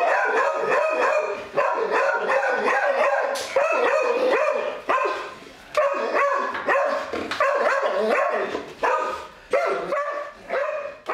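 A dog barking repeatedly in quick runs of pitched yaps with short pauses between runs, coaxed into barking on cue.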